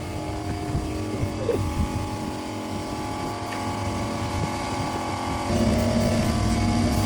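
A machine running steadily with an even droning hum. About five and a half seconds in it grows louder and takes on a lower tone.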